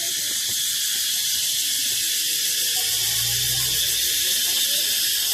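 A loud, steady, high-pitched shrill chorus from unseen creatures in the surrounding trees, which the onlookers take for many birds calling loudly. A brief low hum comes in about three seconds in.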